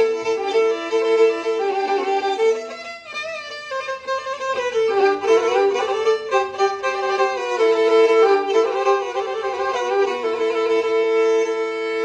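Black Sea kemençe playing a quick, ornamented melody over a steady drone note. The sound thins briefly about three seconds in, then carries on.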